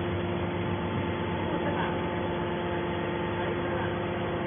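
Hydraulic scrap metal baler's power unit running with a steady hum: an even machine drone with several held tones that do not change.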